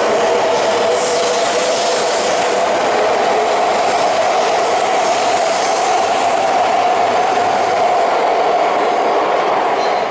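Coupled E5 and E3 series Shinkansen 16-car train pulling out past the platform. It makes a steady, loud rumble of wheels and running gear, with a constant hum running through it.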